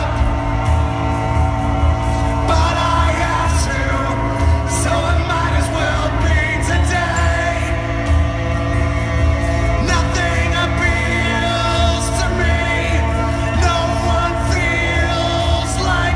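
Loud recorded rock music with singing playing through an arena's PA system as a concert intro, with the stage not yet live.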